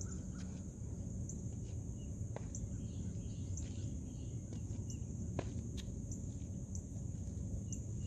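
Outdoor ambience: a steady high-pitched insect drone over a low steady rumble, with scattered faint chirps and ticks.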